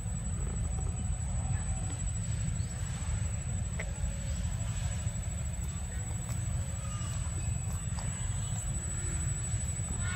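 Steady low rumble of outdoor background noise, with a few faint clicks and short faint chirps above it.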